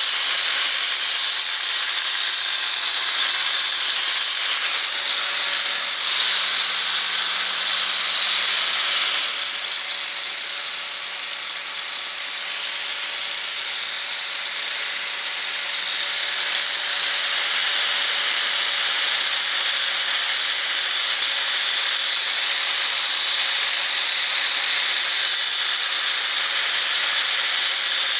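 Ozito angle grinder with a diamond brick-cutting blade running without a break and grinding into a clay brick: gritty cutting noise over a steady high whine from the motor and blade.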